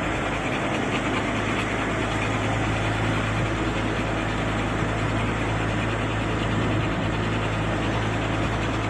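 Camper's engine running with a steady low hum under even road noise while the vehicle drives at a constant pace.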